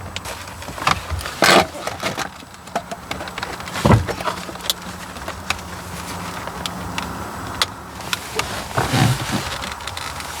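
Scattered light clicks and plastic knocks from the instrument cluster being handled while its wiring connector is worked loose, with a louder knock about four seconds in. A steady low hum runs underneath.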